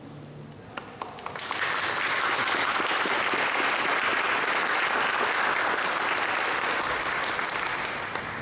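A small audience applauding: a few scattered claps about a second in, then full steady applause that tapers off near the end. The last note of a classical guitar rings out and dies away at the very start.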